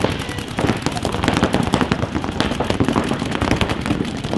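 Paintball markers firing in rapid strings, many shots a second, with several guns overlapping.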